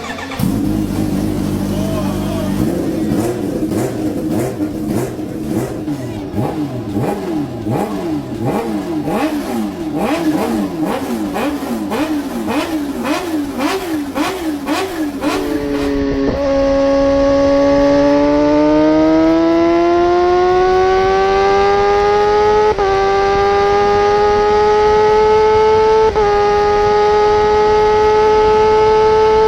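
Four-cylinder motorcycle engine revved in quick repeated throttle blips, its pitch jumping up and falling back each time. About halfway through comes a second recording of the engine accelerating hard, its pitch climbing steadily, with two brief breaks for gear changes near the end.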